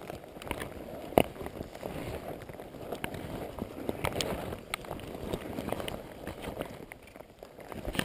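Footsteps through wet undergrowth with the rustle of a rain jacket and brushing twigs, broken by a few sharp clicks, the clearest about a second in.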